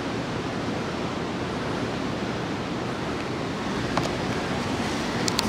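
Steady rushing outdoor city-street noise, with a few short sharp clicks about four seconds in and near the end.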